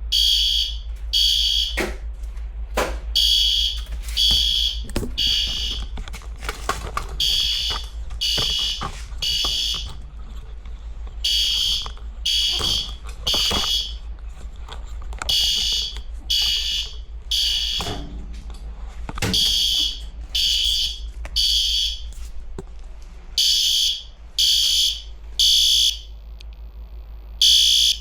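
Building fire alarm horn sounding a loud, high-pitched tone in repeated short pulses, mostly three at a time with a short pause between groups: the evacuation signal. A steady low hum runs underneath, with a few scattered knocks in the first half.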